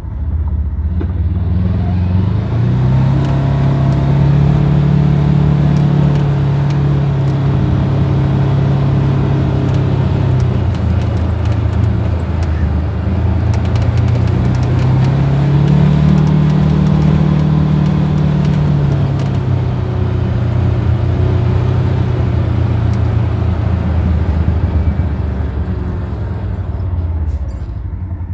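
Motorcycle engine running on the road. Its pitch rises twice as it speeds up and falls back as it slows, with wind noise on the microphone throughout.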